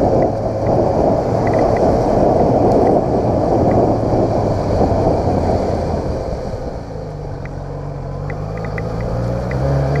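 Yamaha XJ6 motorcycle's inline-four engine running under wind noise on the microphone while riding over paving stones. The wind eases about seven seconds in as the bike slows, leaving the engine note clearer, and the note rises slightly near the end.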